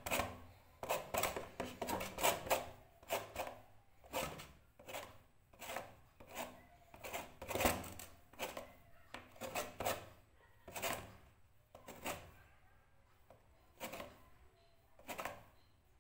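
Lemon rubbed against a flat stainless-steel hand grater, zesting off the yellow peel in a run of short, uneven scraping strokes.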